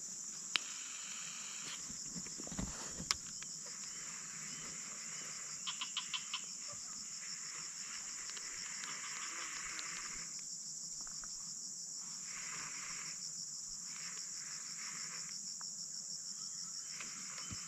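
Steady high-pitched insect chorus trilling with a fast pulse, with a lower hiss that comes and goes underneath. A few faint clicks stand out, including a short run of them about six seconds in.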